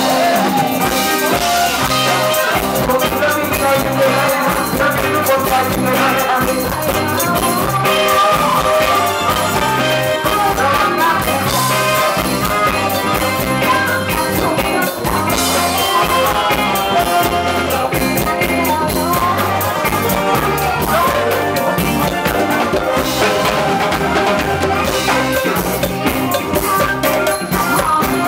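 Live band playing Thai ramwong dance music, led by an electronic keyboard with drum kit and congas, loud and without a break.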